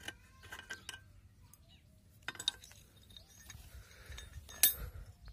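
Light metallic clicks and taps from brass sprinkler-nozzle parts and steel hand tools being handled. One sharper, ringing metal clink comes near the end.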